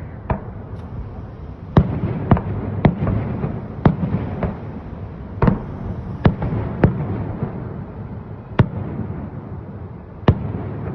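Salute fireworks shells bursting overhead: about a dozen sharp bangs at uneven intervals, over a steady rumble that echoes between them.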